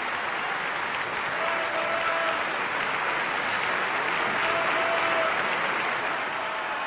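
A group of children clapping and applauding, steady throughout.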